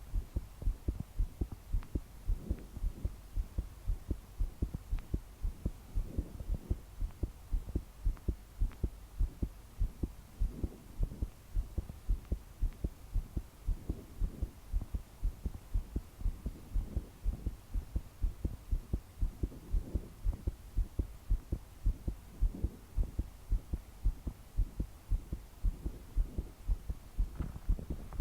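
A young woman's fast, pounding heartbeat with palpitations, heard close up as a quick, steady train of low thumps. Slow breaths swell in and out every few seconds behind it.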